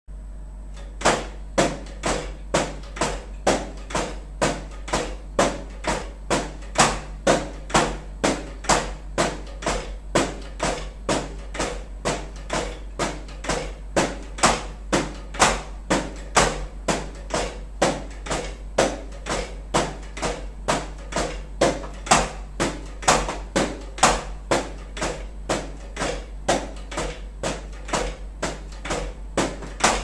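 Hickory drumsticks striking the pads and cymbal pads of an electronic drum kit: the unamplified acoustic tapping of the pads themselves, not the module's drum sounds. A steady beat of sharp taps, about two a second, starts a second in, with a constant low hum underneath.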